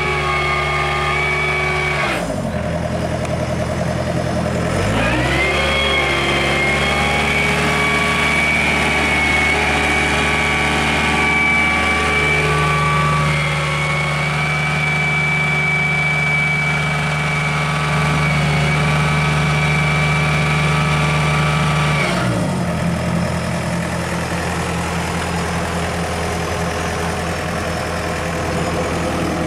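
Volvo EW55 wheeled excavator's engine and drivetrain running with its wheels spinning, a steady mechanical whine over the engine. The pitch falls about two seconds in, rises again to a higher steady tone a few seconds later, holds, and falls back about 22 seconds in as the drive slows.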